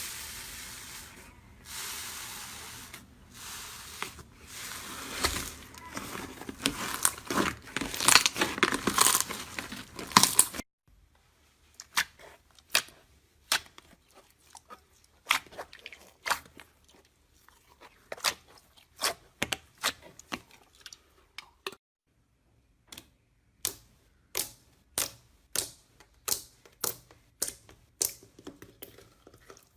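Slime being squeezed and worked close to the microphone, with a dense crackling crunch that stops abruptly about ten seconds in. Then comes a series of separate sharp crisp clicks or pops, about one to two a second.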